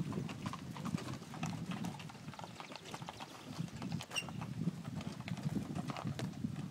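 Horse hooves clip-clopping on stone cobbles in a quick, irregular run of sharp clacks, over a steady low rumble of the wagon's wheels rolling on the cobbles.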